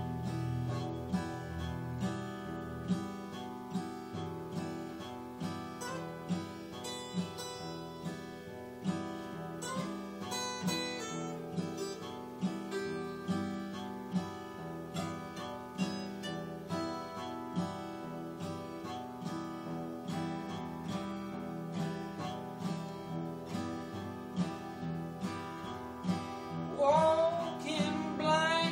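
Two acoustic guitars playing together in a steady picked and strummed pattern. Near the end a voice begins singing over them.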